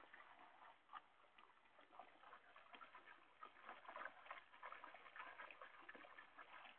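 Near silence, with faint scattered soft ticks.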